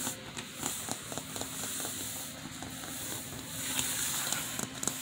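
A kitten's claws ticking and scratching on bare wooden floorboards as it scampers about, with a steady low hum underneath from about a second in.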